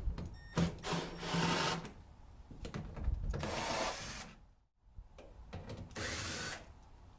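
Power drill fitted with a 1/4-inch socket running in about three short bursts, backing the bolts out of the cooler's header panel, with clicks and knocks between the runs.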